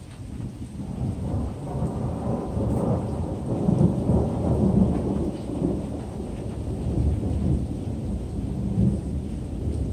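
Rolling thunder from a nearby lightning strike: a deep rumble that swells over the first couple of seconds, is loudest about four to five seconds in, then keeps rolling a little softer.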